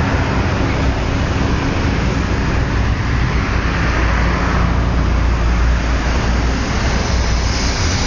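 Car engines running in a line-up of parked cars, a loud, steady low rumble with no sudden events.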